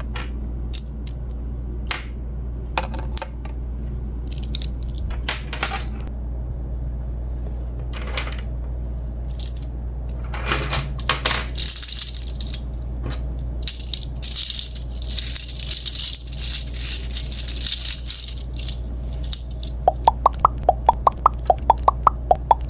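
Small plastic toy pieces being handled: scattered clicks, taps and rattles, with a stretch of high crinkling hiss in the middle. Near the end comes a quick regular run of short pitched ticks, about four or five a second.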